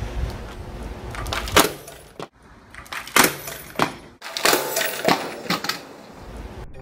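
Two hand-held work lamps, an explosion-proof LED lamp with a metal cage guard and an ordinary lamp, dropped from about 7 metres onto a concrete floor. There is a sharp crash about one and a half seconds in, then a run of clattering impacts as they hit and bounce. This is a drop test in which the ordinary lamp breaks.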